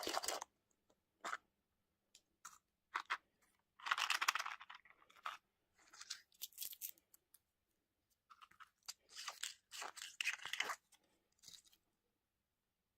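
Candy and toy packaging being handled and opened: irregular crinkles, crunches and small clicks, loudest in two longer bursts about four seconds in and again around nine to ten seconds in.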